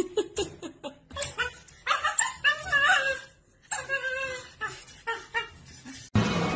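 A dog whining and yowling in short, pitch-bending bouts, over sharp clicks and clatter from the wire crate it is pushing against. Music starts abruptly near the end.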